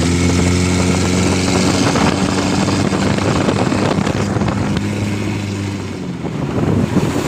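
Car engine driving a katinting longtail boat, running at a steady speed and easing off slightly near the end.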